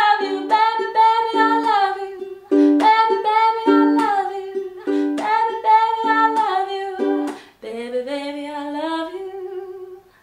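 A woman singing with a ukulele strummed in chords. The song closes on a long held, wavering note near the end, then stops.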